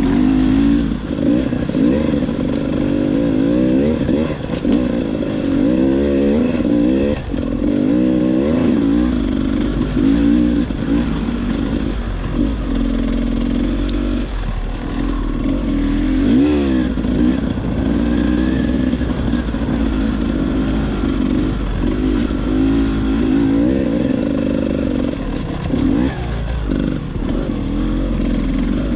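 Off-road dirt bike engine ridden on a trail, its revs rising and falling over and over as the throttle is worked.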